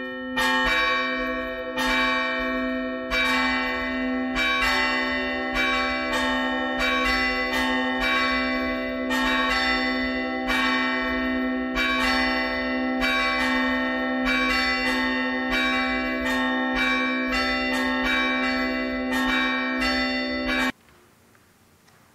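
Church bells ringing: a steady run of overlapping strikes, roughly one every half second to second, over a deep sustained hum from the largest bell. The ringing cuts off suddenly near the end, leaving near-silent room tone.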